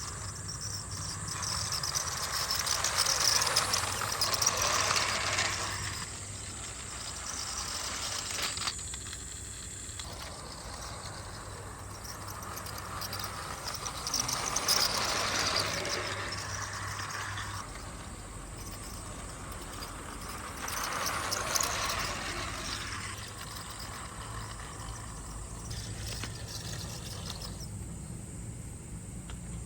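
Toy Vande Bharat train running on its track layout, a whirring rattle that swells and fades four times as it comes close and moves away.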